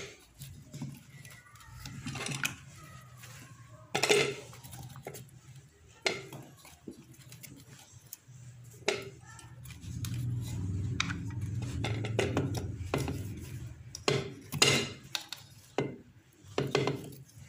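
Hands handling marinated chicken pieces in a metal cooking pot: scattered knocks and clatters of food and fingers against the pot, the loudest about four seconds in and again near the end, with a low hum in the middle.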